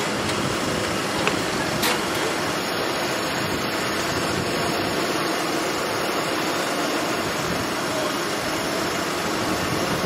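Fendt tractor's engine running under load as it pulls a mounted reversible plough, a steady even noise, with two brief faint clicks between one and two seconds in.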